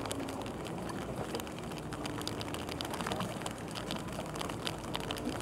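Rain pattering on a fishing boat and the angler's rain gear, many small irregular taps over a steady wash of noise, with the boat's engine humming low underneath.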